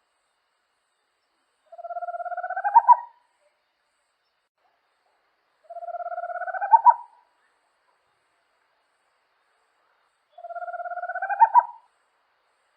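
A small owl singing three times, about four seconds apart. Each song is a fast trill that rises slightly in pitch and ends in a few louder, accented notes.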